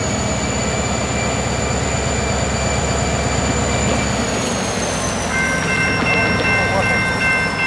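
Diesel freight locomotive running close by with a high whine over its engine rumble. The rumble drops back about four seconds in as the whine falls slightly in pitch. About five seconds in, a steady bell starts ringing.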